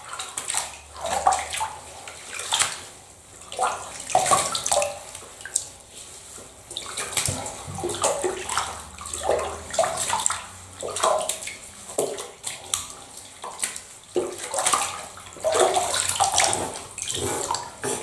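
Bathwater splashing and pouring as hands scoop water from a tub over a soapy cat to rinse the shampoo off, in irregular splashes about once a second.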